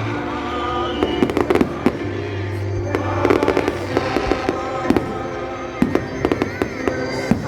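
Fireworks going off in quick, irregular bangs and crackles throughout, over music that keeps playing underneath.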